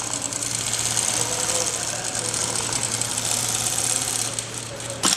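JOOKE automatic pattern (template) sewing machine stitching at speed: a fast, steady needle rattle over a low hum. The stitching eases off near the end, followed by a sharp click.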